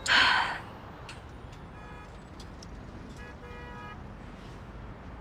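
Distant city traffic ambience with a few short car horn toots in the middle. It opens with a short, loud rush of noise.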